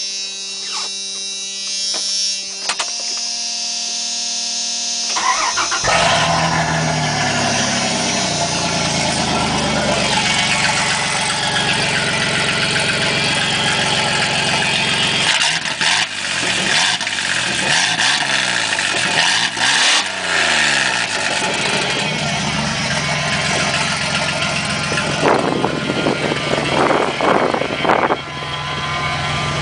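A steady electric buzz in the cab for about five seconds. Then the 3.9-litre V6 of a 1997 Dodge Ram 1500 starts and runs loud through its gutted catalytic converter and cut-off exhaust. Its engine speed rises and falls several times in the middle before it settles to an idle.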